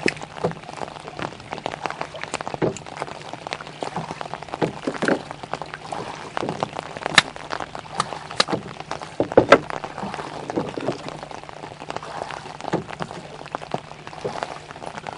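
Light wet pattering over water, with scattered sharp clicks and knocks as a freshly caught Arctic char is unhooked in a landing net in a wooden rowboat. Two clicks, about seven and nine and a half seconds in, are the loudest.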